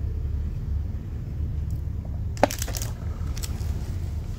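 A brass Zippo lighter being handled: a sharp metallic clink about halfway through, then a few lighter clicks, over a steady low hum.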